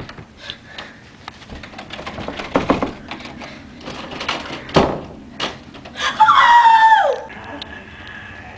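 Several knocks on a wooden door, spaced out. About six seconds in comes a loud, high squeal that falls steeply in pitch over about a second.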